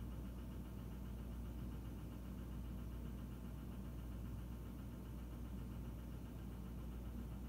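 Steady low hum with a faint even hiss, with no distinct sounds standing out: indoor room tone.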